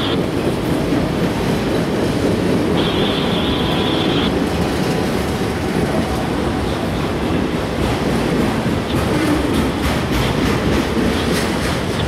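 Autorack freight cars of a passing CSX train rolling by: a steady rumble of steel wheels on rail, with a brief high-pitched wheel squeal about three seconds in and a run of sharp wheel clicks near the end.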